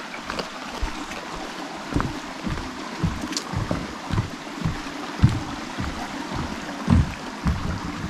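A stream running steadily, with a person's footsteps on a forest trail thudding about twice a second.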